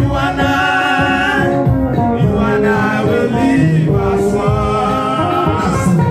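Background music: a song with a sung vocal over a steady instrumental backing.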